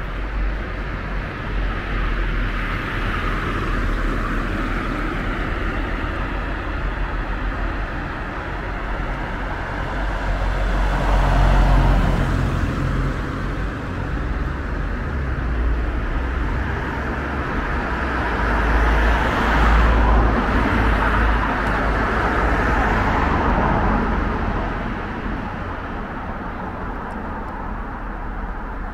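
Road traffic on a town street: a steady hum of cars with vehicles passing, swelling to its loudest twice, about eleven and twenty seconds in.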